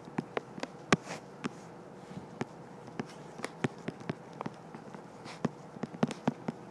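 Stylus tapping and clicking on a tablet's glass screen during handwriting: a string of irregular sharp taps, several a second.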